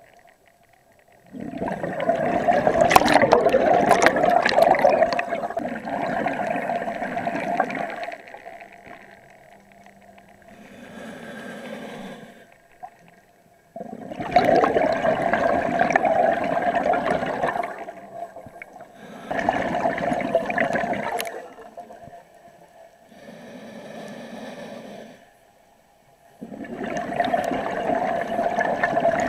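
A scuba diver breathing through a regulator underwater: long, loud gurgling bursts of exhaled bubbles alternate with shorter, quieter hisses of inhalation, a few slow breaths in all.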